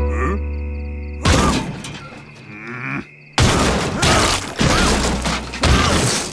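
Cartoon sound effects of a character screaming from inside a car trunk, with loud thuds and crashes as the trunk lid is forced shut on them. The noise comes in two long loud stretches, about a second in and again past the middle.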